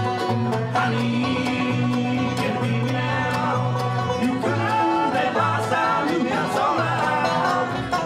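Acoustic bluegrass band playing live: a five-string banjo and mandolin picking over an acoustic guitar and a plucked upright bass line.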